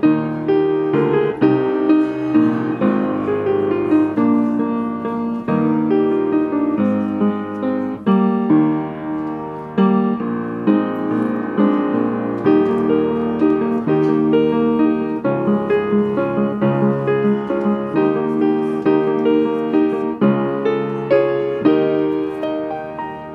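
Upright piano being played: a steady flow of chords and melody notes, each struck and then ringing away.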